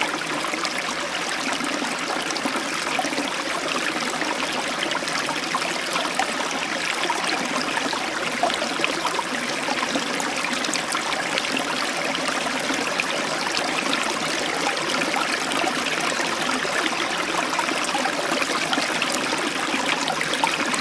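Steady trickling and splashing of aquarium water circulating in a small nano cube tank, with faint scattered ticks.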